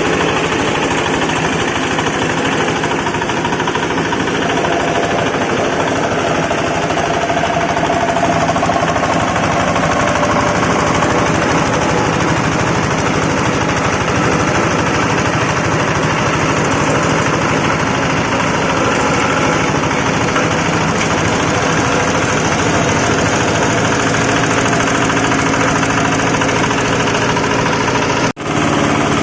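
Wood-shaving machine for chicken bedding running loudly and steadily, a fast rough chatter over a motor's hum. It breaks off for an instant near the end.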